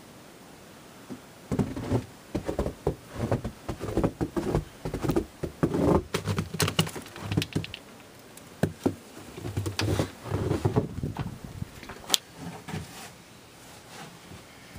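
Irregular knocks, clicks and rustles of handling and movement, thickest in the first two thirds and thinning out near the end.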